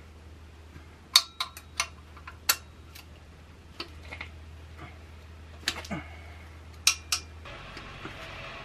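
Sharp metallic clicks and clinks of a socket wrench working exhaust manifold nuts loose on a Nissan SR20DET engine, in small irregular clusters of two or three.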